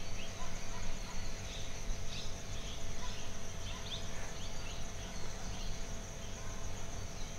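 Steady high-pitched insect drone of crickets, with scattered short chirps over a low background rumble.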